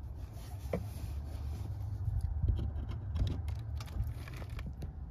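Plastic rubbing and scraping with a few light clicks as the scan tool's OBD-II plug is pushed into the car's diagnostic port under the dashboard, over a low steady rumble.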